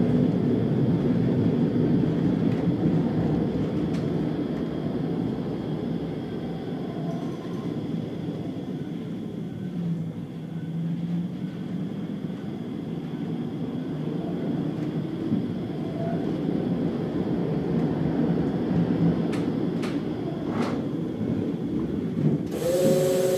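Leoliner tram running along street track, heard from inside at the rear: a steady rumble of wheels on the rails with running-gear noise, and a few sharp clicks. Near the end a louder sound with several held tones begins.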